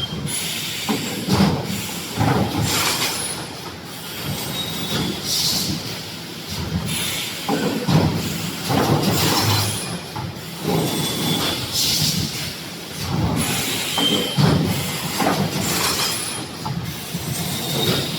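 3D wire mesh EPS wall panel welding machine running, working in a cycle that repeats about every two seconds with metallic clattering, squeals and hissing.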